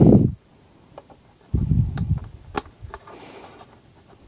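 Handling noise from fitting a micro SIM card into a small plastic 4G router: a few sharp little clicks and light rustling. A dull low thud comes at the start and another about a second and a half in.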